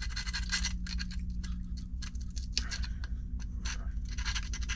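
Small sanding stick rasping inside a hole in a 3D-printed plastic part in short, irregular strokes, cleaning the hole out, over a steady low hum.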